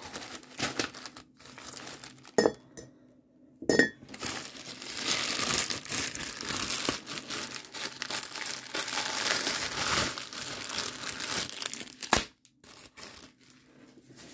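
Black plastic mailer bag crinkling and rustling as it is handled and opened, dense and continuous through the middle of the stretch. Two sharp clicks come about two and a half and four seconds in, and the rustling turns quieter and sparser near the end.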